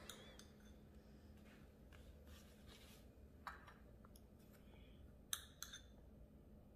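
Near silence: room tone with a few faint clicks and taps, the clearest about three and a half seconds in and two close together a little after five seconds.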